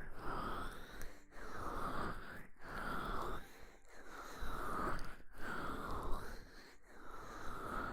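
Oiled hands massaging and rubbing over the ears of an ASMR microphone in repeated strokes. Each stroke is a rubbing noise of a second or more, with a short break before the next, about six in all.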